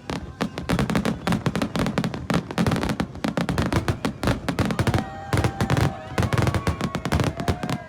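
Fireworks display: a dense, rapid barrage of bangs and crackles, loudest in the first five seconds, with a few sliding high tones in the second half.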